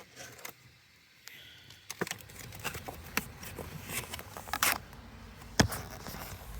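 Handling noises of a package being unboxed: scattered clicks, short rustles and taps, with one sharp knock about five and a half seconds in.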